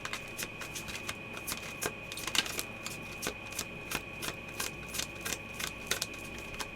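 A deck of tarot cards being shuffled by hand: a quick, irregular run of light card snaps and taps, about four a second.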